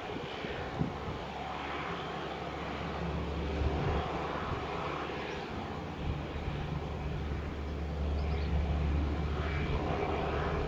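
Cessna 208B Caravan's single PT6A turboprop engine running as the plane rolls along the runway after landing, heard from across the airfield as a steady low drone. It grows somewhat louder near the end.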